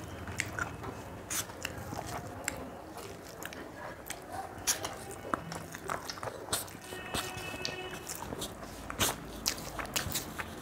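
Close-miked eating sounds: chewing with many small, sharp mouth clicks and smacks as two people eat rice and spicy chicken curry by hand.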